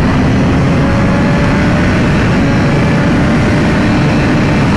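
Wind roar over a helmet microphone at highway speed, with the 2022 BMW S1000RR's inline-four engine running underneath at a steady, nearly unchanging pitch. The bike is new and in its break-in period, limited to 8,000 rpm.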